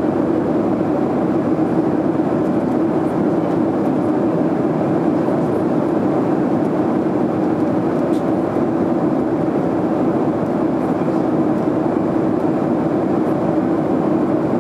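Steady cabin noise of a Boeing 737 in cruise, heard from a seat over the wing: an even rush of airflow and engine noise with a low hum at its core.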